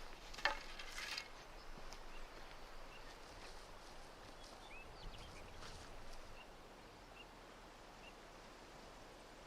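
Faint outdoor ambience with a few small, distant bird chirps, one rising, and a couple of short rustling or scraping sounds in the first second or two.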